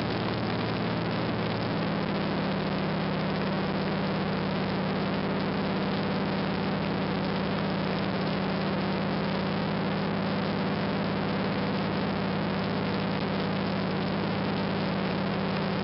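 De Havilland Beaver floatplane's engine and propeller droning steadily in flight, heard from inside the cabin, with a dense rush of air noise over it. The engine tone shifts slightly about two seconds in.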